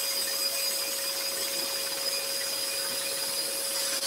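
Scroll saw running steadily, its reciprocating blade cutting a long sweeping curve through 18 mm timber.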